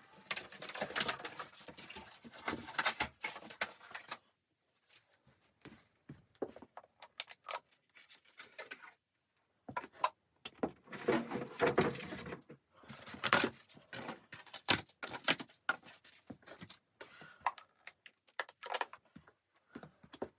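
Irregular rustling with many sharp clicks and knocks in clusters, pausing briefly about four seconds in and again about nine seconds in.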